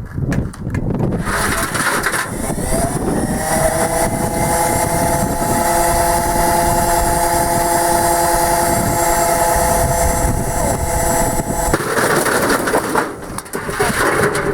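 Beko washing machine's motor whining as it speeds up to a spin, the whine rising in pitch and then holding steady over loud rough rumbling and rattling. The whine cuts out about twelve seconds in, and the rumbling dies away near the end.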